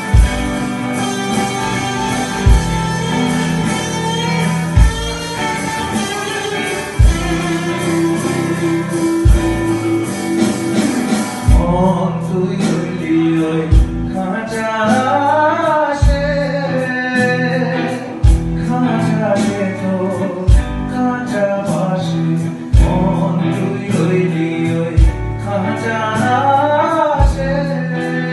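Live band with electric guitars and drum kit playing a slow blues-tinged groove, with a loud drum hit roughly every two seconds. A little under halfway through, a harmonica comes in with a wailing lead of bent notes over the band.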